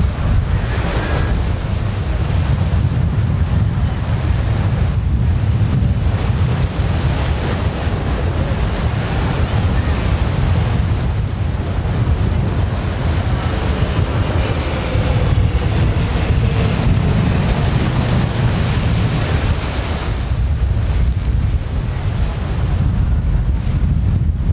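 Strong wind buffeting the microphone as a steady low rumble, with the engine and propeller of a light single-engine plane faintly audible underneath; a faint engine tone briefly stands out about two-thirds of the way through.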